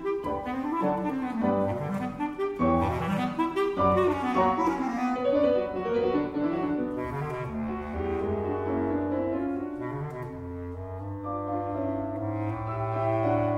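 Instrumental background music: several overlapping melodic lines over held low bass notes.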